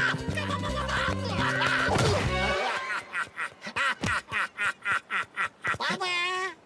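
Cartoon music with a sudden hit about two seconds in. Then a Rabbid laughs in quick pulses, about four a second, ending in a long, wavering high note.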